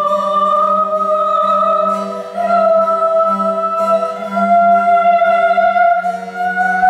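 Soprano singing Baroque sacred music: long held notes with vibrato that climb slowly in pitch, over a cello and harpsichord accompaniment with a repeated pulsing bass note.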